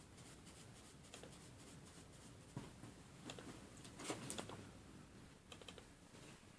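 A sleeping Doberman pinscher snoring faintly: a few short snore sounds, the loudest about four seconds in.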